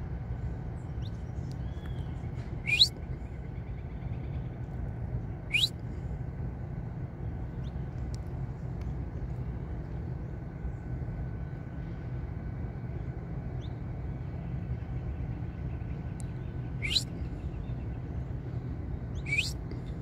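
Saffron finch giving short, sharp upward-sweeping chirps, four in all: two in the first six seconds and two near the end. A steady low rumble runs underneath.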